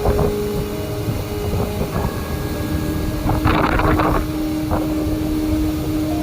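Hurricane-force wind rushing and gusting against the microphone, with a strong gust about halfway through, over steady droning tones.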